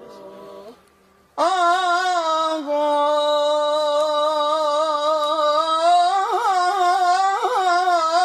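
A man singing an Arabic devotional song in praise of the Prophet, unaccompanied. From about a second and a half in he holds one long vowel with vibrato, breaking into ornamented turns toward the end.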